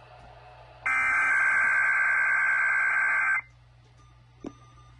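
Emergency Alert System SAME header data burst: the raspy two-tone digital squawk of the alert's encoded header, lasting about two and a half seconds from about a second in. It is the header of a Required Weekly Test; after it comes a short pause with a faint click.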